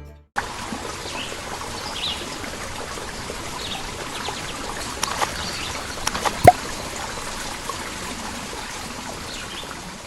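Water trickling steadily, with a few faint bird chirps and one sharp click about two-thirds of the way through.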